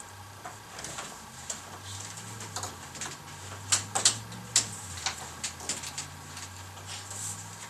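Scattered light clicks and taps of papers and small objects being handled on a wooden conference table, a few louder knocks near the middle, over a low steady hum.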